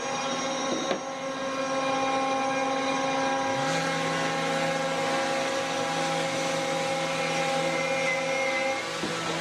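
Electric random orbital sander switched on about three and a half seconds in and run steadily against a hardwood board, over the steady hum of a shop machine already running.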